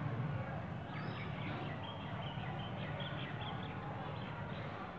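Birds chirping in a quick series of short, high notes, over a steady low hum.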